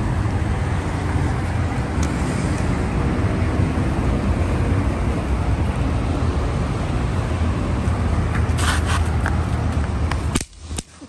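Steady road traffic noise from a busy highway, a continuous rumble of passing cars and trucks. A few short clicks come about eight and a half seconds in, and the sound cuts off abruptly near the end.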